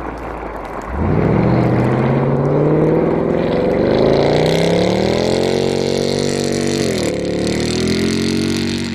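Mercedes-AMG C63's V8 engine revving hard as the car accelerates away sliding sideways on ice. After about a second of rushing noise, the engine note rises steadily in pitch for several seconds, then holds high with a brief dip about seven seconds in.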